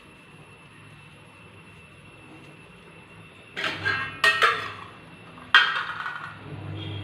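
Kitchen dishes and utensils clattering: after a quiet stretch, three sharp knocks with a brief ring come close together about halfway through, and one more follows a second later.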